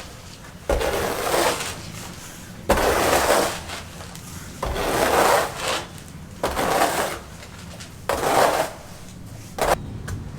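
Six rough scraping strokes, one roughly every two seconds, each lasting about a second and starting abruptly.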